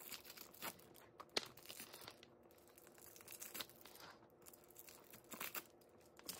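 Faint crinkling and tearing of wrapping being pulled off a new handbag, in a series of short rustles.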